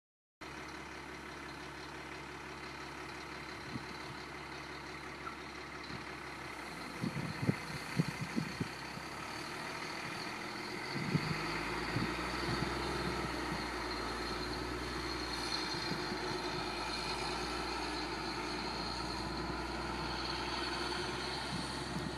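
Moving truck's engine idling, a steady low running sound, with a cluster of knocks and thumps about seven to nine seconds in and a few more near the middle.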